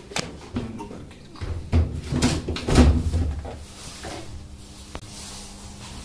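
Knocks and thumps of a top-load washing machine's glass lid and plastic top being handled and shut, a few light clicks first, then a cluster of heavier knocks about two to three seconds in.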